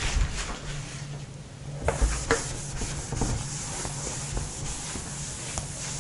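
Cloth rubbing over a whiteboard, wiping off marker writing: an even rubbing hiss that settles in about two seconds in, after a couple of light knocks.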